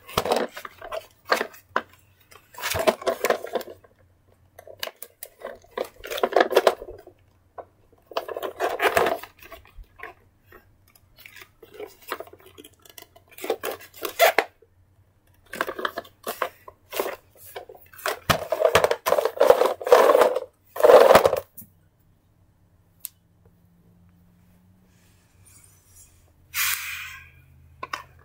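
Hands handling a plastic toy car and stuffed toys: repeated bursts of rustling and plastic clatter, falling quieter for the last several seconds apart from one short hiss near the end.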